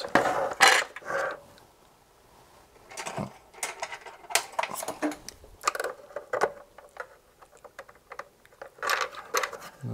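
Plastic cabinet of a portable transistor radio being handled on a workbench: the radio is turned over and laid flat and the back cover worked by hand, giving irregular knocks, clicks and scrapes, loudest in the first second, with a brief lull about two seconds in.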